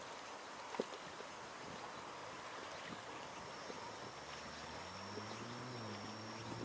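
Small waves lapping against an inflatable packraft on open water, with a light click about a second in. From about four seconds in, the low drone of a distant motorboat engine comes in and slowly shifts in pitch.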